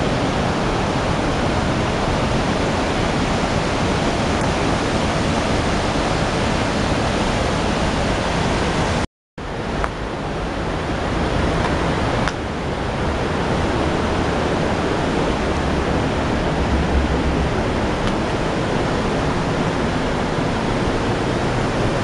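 Rushing water from the Segade waterfalls: a steady, loud, even rush. The sound cuts out for a split second about nine seconds in.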